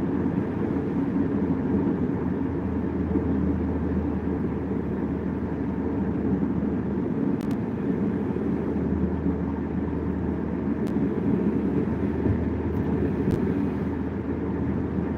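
Steady low drone inside a car's cabin while it cruises on a highway: tyre and engine noise holding an even pace.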